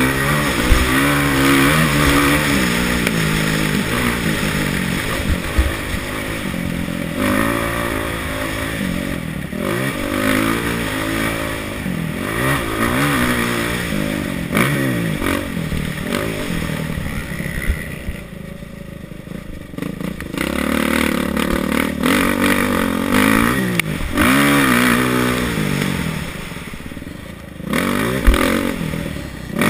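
Kawasaki KX450F four-stroke single-cylinder motocross engine revving up and down hard as the rider works through the gears, rolled off for a couple of seconds past the middle and again near the end. A few sharp knocks cut in over the engine.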